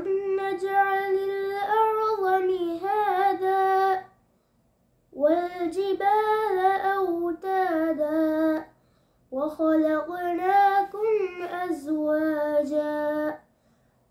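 A boy reciting the Quran in a melodic, chanted tajweed style. He sings three long phrases with gliding, ornamented pitch, and pauses briefly for breath between them.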